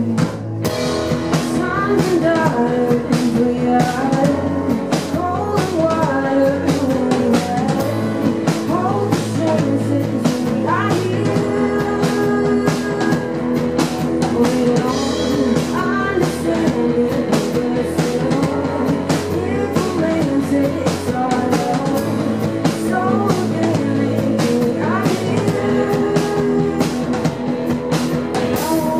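Live band music: a woman sings lead while playing an electric keyboard, backed by a drum kit keeping a steady beat.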